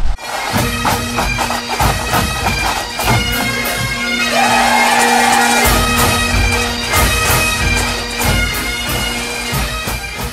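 Bagpipe music: a melody played over a steady drone, fading near the end.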